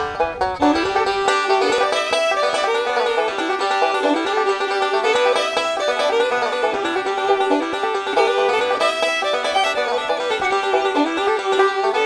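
Intro music: a fast bluegrass tune led by picked banjo, starting abruptly.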